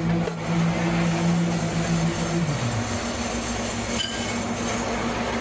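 Slipform concrete paver running: a steady mechanical hum over a broad rumble. About two and a half seconds in, the main hum slides down in pitch and fades, while a second steady hum carries on.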